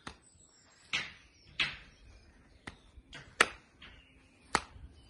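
Hook punches smacking into padded focus mitts: a series of about seven sharp hits, irregularly spaced, the loudest about three and a half seconds in.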